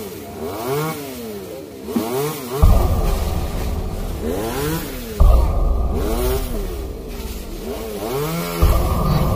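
Two-stroke chainsaw engine revved up and down over and over, about once a second, with a low rumble that cuts in suddenly a few times.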